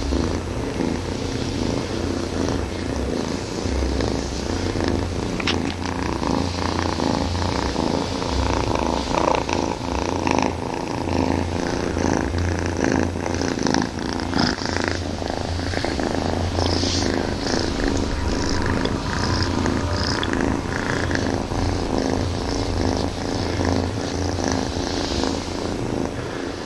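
Kaiju creature sound effect for a Godzilla-style monster: one long, low, rough purring growl that rumbles on steadily.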